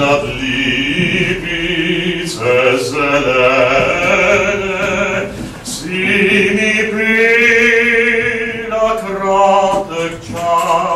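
A male bass-baritone singing solo in slow phrases of long held notes with vibrato, the longest held for about three seconds past the middle.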